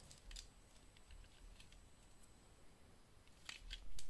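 Light, scattered clicks and taps as a wristwatch with a metal link bracelet and a plastic digital caliper are handled, with a louder cluster of clicks near the end.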